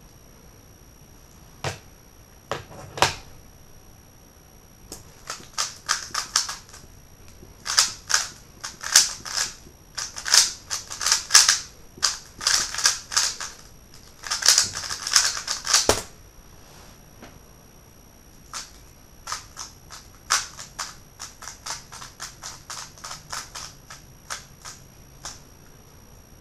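Magnetic WeiLong GTS v2 M speed cube being turned at speed: rapid bursts of plastic clicking and clacking as the layers snap round. It starts with a few clicks, is dense and loudest through the middle, and thins to sparser, lighter clicks near the end.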